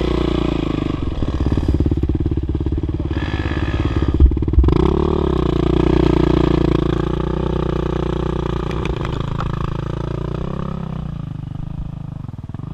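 Dirt bike engine running close by at loud, uneven revs, rising in pitch about five seconds in and easing down near the end. Two sharp knocks sound just past four seconds.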